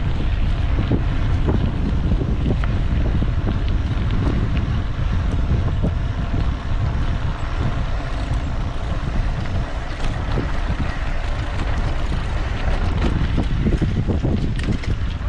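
Heavy wind buffeting the microphone of a camera on a moving mountain bike, with many small clicks and knocks from the bike over rough ground.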